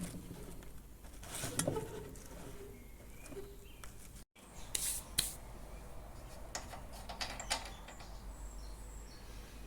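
Scattered light clicks and knocks of hand tools being worked on a small lawnmower engine, as the spark plug is taken out to check for spark; a few sharper clicks come about five seconds in.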